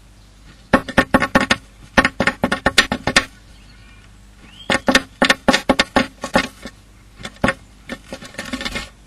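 Female blue tit pecking and stripping wood inside a wooden nest box: rapid bursts of sharp taps, several a second, broken by short pauses, ringing in the hollow box.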